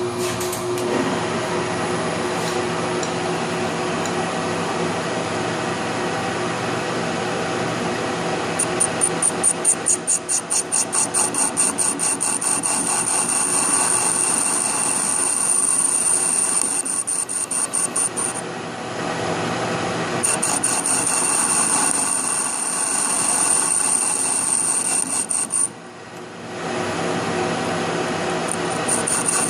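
Metal lathe running while its cutting tool works a truck lug nut. A high-pitched squeal that pulses rapidly comes in about a third of the way through, breaks off twice and comes back each time.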